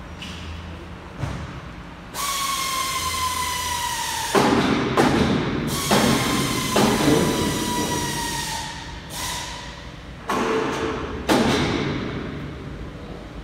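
Workshop noise: a high whine that slides slowly down in pitch, heard twice for a few seconds each, with loud heavy knocks and thuds in between and two more near the end.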